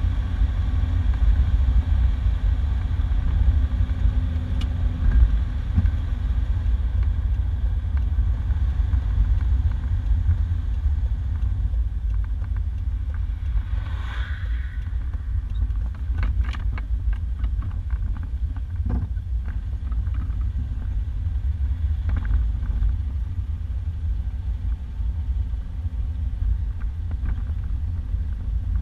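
1991 Isuzu Trooper driving, heard from inside the cab: a steady low rumble of engine and road noise. About halfway through comes a short run of clicks and rattles, then a single knock.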